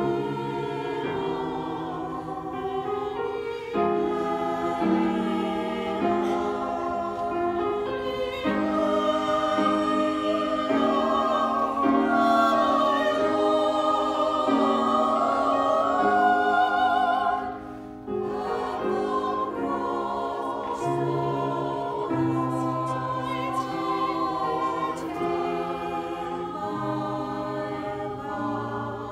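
Mixed church choir singing a choral anthem in sustained chords, with a brief break in the sound a little past the middle.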